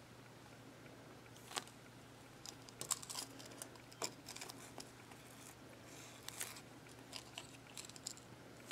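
Faint soft crackles and clicks of a foam squishy toy being squeezed and handled between the fingers, coming in small scattered clusters.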